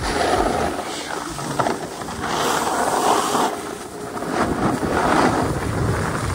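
Snowboard edges scraping over groomed snow through a run of turns, the hiss swelling and easing with each turn.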